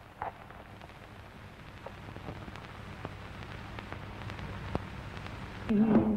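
Steady hiss and low hum with scattered crackles from an old film soundtrack, slowly growing louder. A tune starts just before the end.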